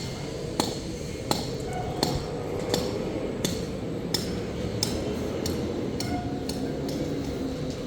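Hammer blows struck at an even pace, about three every two seconds. Each blow is sharp with a brief ring, over a steady background rumble of the site.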